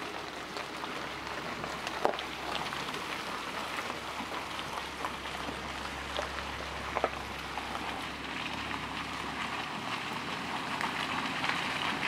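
Steady rain falling on wet forest foliage, with scattered louder single drops, the loudest about two seconds in and another about seven seconds in.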